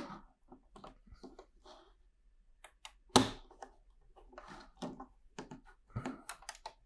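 LEGO plastic pieces being handled and pressed together: a scattered series of small clicks and taps, the sharpest about three seconds in.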